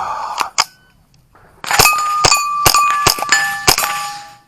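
A string of about eight rapid .22 rimfire shots from an AR-15-style .22 rifle, each hit followed by steel target plates ringing at several different pitches, the ringing dying away after the last shot. A short rustle and a couple of clicks come before the shooting starts.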